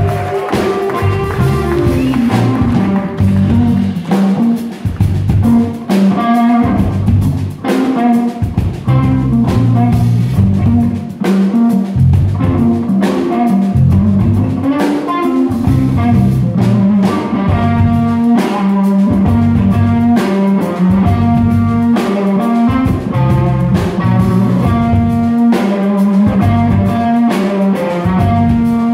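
Live band playing an instrumental blues-rock groove: drum kit with electric bass and electric guitar.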